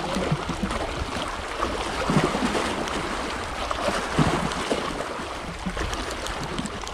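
Small sea waves lapping and splashing against the rocks of a breakwater, with wind buffeting the microphone.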